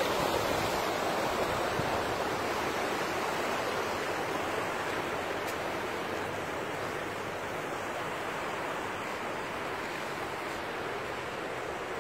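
Water rushing over rocks in a shallow rocky canal, a steady rushing noise that grows gradually fainter.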